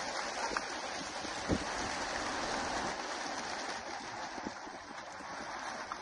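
Steady rushing whir of a large flock of racing pigeons' wings as the released birds fly off, slowly fading. There is a short soft knock about a second and a half in.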